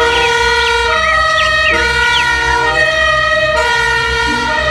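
Two-tone emergency siren (German Martinshorn) of a fire-brigade ambulance on a call, its two notes alternating about once a second over the vehicle's low engine rumble.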